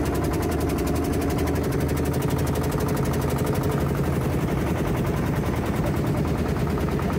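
Small motorboat's engine running steadily underway, with a rapid, even knocking beat over a low hum.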